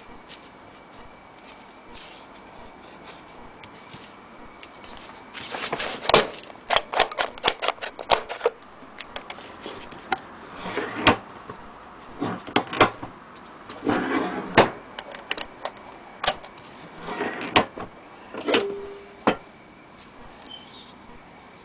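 Irregular clicks, knocks, rattles and short scrapes from the case and metal parts of a His Master's Voice portable gramophone being handled. They start about five seconds in, come in bunches, and die away near the end.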